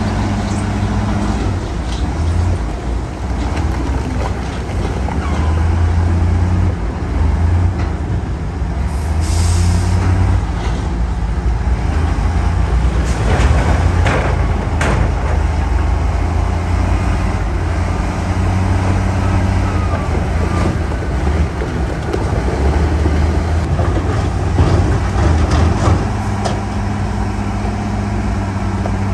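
Heavy diesel engines of dump trucks and a bulldozer running steadily with a deep drone. A short air-brake hiss comes about nine seconds in, and a few sharp knocks sound around the middle.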